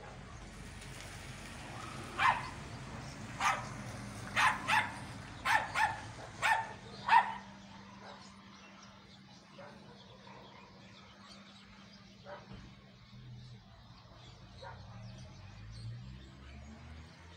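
A dog barking: about eight short, sharp barks in quick succession in the first half, then only faint sounds.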